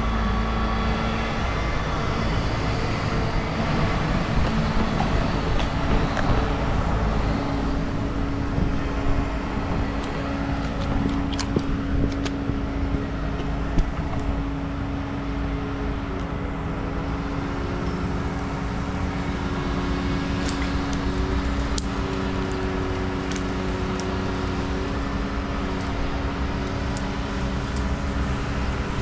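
A crane's engine running steadily, with a constant low hum and a few light clicks and knocks over it.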